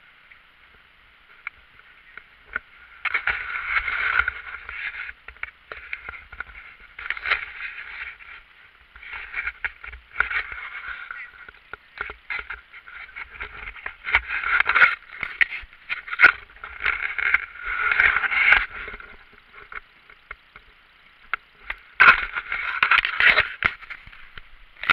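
Kayak paddling in water: irregular bursts of splashing and sloshing, about six in all, with scattered knocks and clicks.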